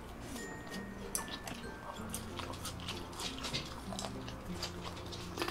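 Close-miked chewing, with small wet mouth clicks and crunches, over soft background music.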